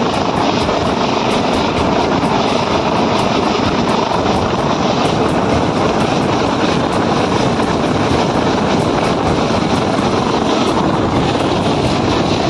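Helicopter hovering low overhead, its rotor and turbine noise loud and steady.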